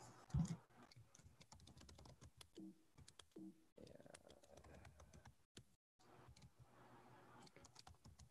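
Faint computer keyboard typing: a scattered run of quiet key clicks, with one brief low thump just under half a second in.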